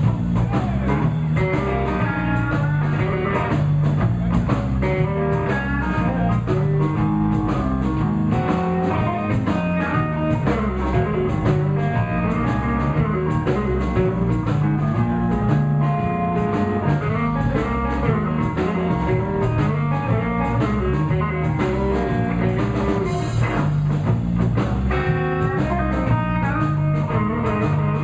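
Live blues band playing an instrumental passage: guitar lines over a repeating bass figure and a drum kit keeping a steady beat.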